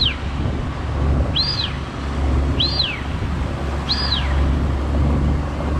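Four-stroke Suzuki DF25A outboard running steadily as the jon boat travels, with a bird giving four short whistled calls that rise and fall in pitch, about one every second and a half.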